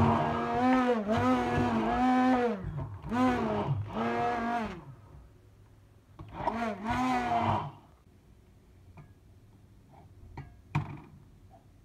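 Handheld stick blender whirring in short runs through thick chickpea and tahini puree, its pitch dipping as the motor bogs down in the paste. It stops about three-quarters of a second before the end of its last run, and the rest is a few light knocks of a spatula in the jar.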